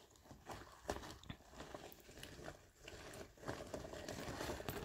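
Black-and-gold patterned latex garment being unfolded and handled, its sheet rubbing and crinkling in quiet, irregular rustles and small crackles.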